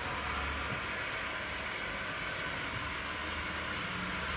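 Steady hiss-like noise with a low rumble underneath, unbroken and without speech.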